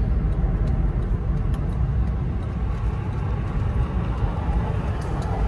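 Road and engine noise inside a moving car's cabin: a steady low rumble.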